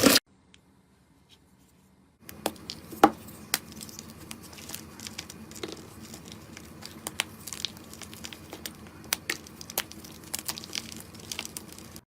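Slime being handled, crackling and popping irregularly with many small sharp clicks, starting about two seconds in.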